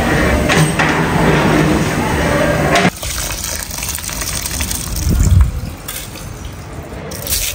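A steady rushing noise with a low hum for about three seconds, then, after a sudden drop, quieter sloshing of water as soaked rice is scooped up by hand and let fall back into a pot of water.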